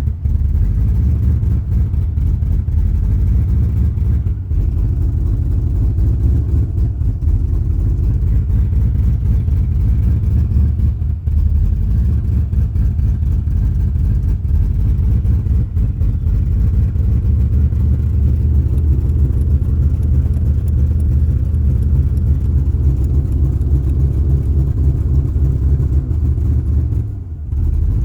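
1993 Chevrolet 1500 pickup engine idling rough: a steady, low, uneven running, with a brief drop in level near the end.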